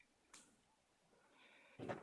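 Near silence, with faint handling sounds: a small tick about a third of a second in and a brief rustle just before the end.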